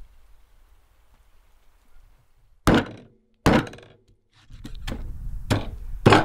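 Meat cleaver chopping through beluga fish fins and skin into a wooden stump block: about six sharp thunks from about two and a half seconds in, the first two with a brief ring of the blade.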